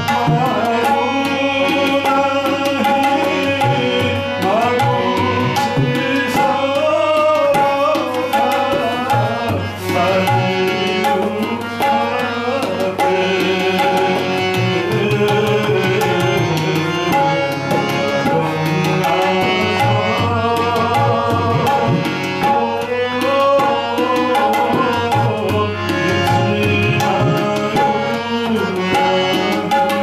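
Live devotional bhajan: a man's voice singing through a microphone, accompanied by harmonium and tabla drums playing a steady beat.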